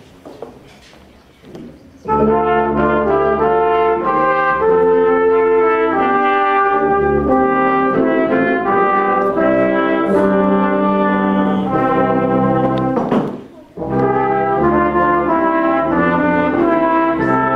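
Brass instruments playing a tune together in chords, starting suddenly about two seconds in, breaking off briefly about two-thirds of the way through, then carrying on.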